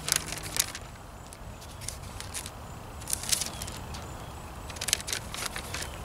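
Thin Bible pages rustling and flicking as they are turned in search of a verse, several short rustles spread out over a few seconds, over a low steady background rumble.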